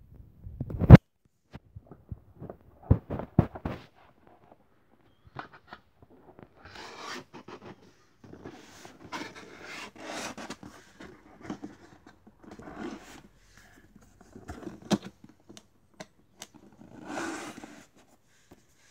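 Cardboard pistol box being shut and handled: a sharp knock about a second in as the lid closes, a few light clicks, then hands scraping and rubbing across the cardboard and its folded end flap.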